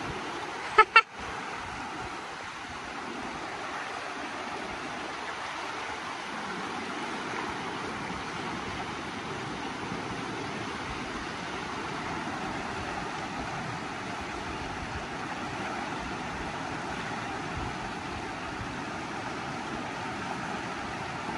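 River rapids rushing steadily over rocks. Two short, loud sounds come about a second in.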